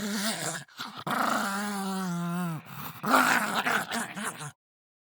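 Pug dog giving its growling 'roar': a short call, then a long held cry that drops in pitch at its end, then rougher growly bursts that stop about four and a half seconds in.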